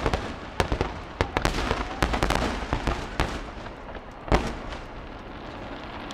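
Aerial fireworks display: dense, rapid crackling and popping bursts, one loud boom about four seconds in, then the crackle thins out to a fading rumble.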